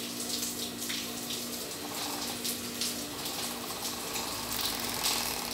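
Industrial overlock sewing machine running steadily as it stitches a seam, a constant motor hum with a hiss on top.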